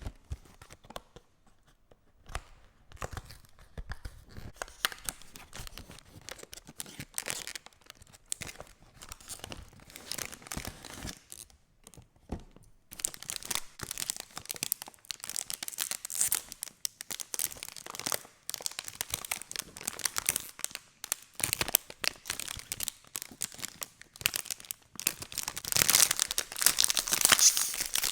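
Food packaging crinkling and tearing as a microwave chicken fillet burger is unwrapped by hand: irregular crackles and rustles, sparse at first, then denser and louder from about halfway, loudest near the end.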